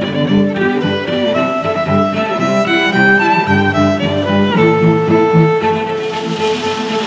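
Background music with bowed strings playing a melody, a violin line over lower strings.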